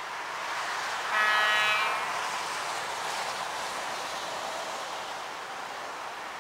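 Electric locomotive horn of an approaching PKP EP07 sounding one chord of several tones for about a second: the Rp1 'attention' warning signal. It sounds over a steady rushing noise.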